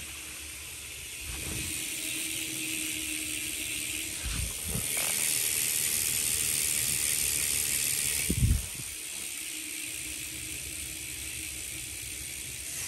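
BMX rear hubs freewheeling as the wheels are spun: a BSD Revolution planetary-clutch freecoaster and a Profile Mini cassette hub, their clutch and pawls clicking in a fast, continuous high buzz. The buzz gets louder about 5 seconds in, and there is a low thump a little past 8 seconds in, the loudest moment.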